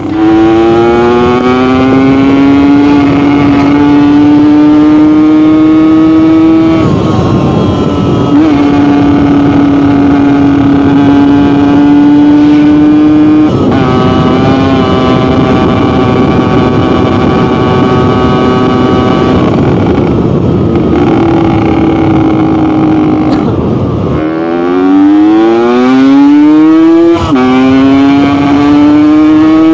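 Yamaha RX King 135cc two-stroke engine with an aftermarket exhaust tuned for a deep 'ngorok' (snoring) note, ridden under load: the engine note climbs, then drops at gear changes several times, with the throttle shut briefly and a steep run up through the revs near the end.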